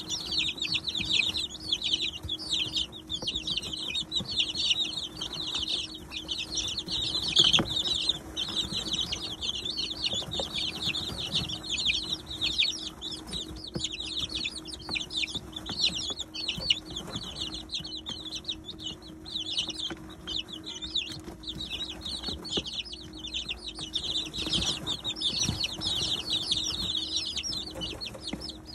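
A brood of 19-day-old chicks peeping without a break, many short high cheeps overlapping. A faint steady hum lies underneath.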